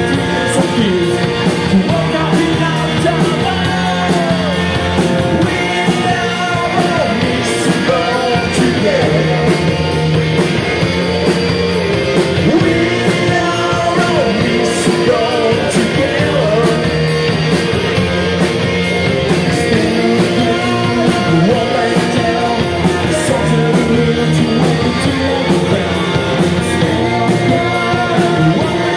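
Live rock band playing loud through a club PA: two electric guitars, bass guitar and drum kit, with a male lead vocal singing over them.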